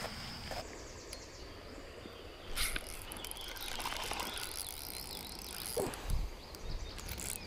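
Outdoor ambience with insects chirring steadily and faint bird calls. A brief louder noise comes about two and a half seconds in, and a low bump about six seconds in.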